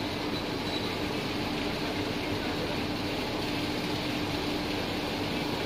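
Steady running hum of a railway locomotive at a station: an even wash of machine noise with a constant low drone that does not change.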